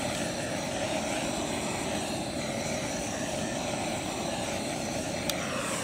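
Handheld torch flame blowing with a steady, even roar as it is swept over freshly poured resin to pop surface bubbles. A small click sounds near the end.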